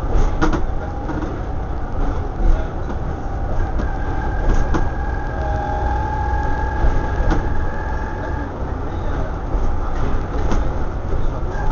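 Interior of a Volvo B7TL double-decker bus on the move: steady diesel engine and road rumble, with sharp rattles and knocks from the body and fittings. A steady whine sounds for a few seconds in the middle.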